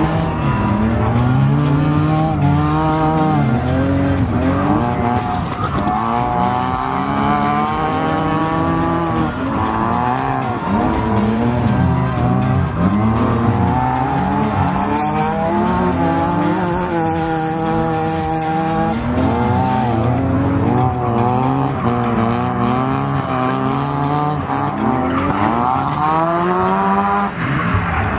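Drift cars in a tandem run on a wet track, heard from inside the chasing car: engines revving up and falling back over and over as the cars slide, with tyre squeal.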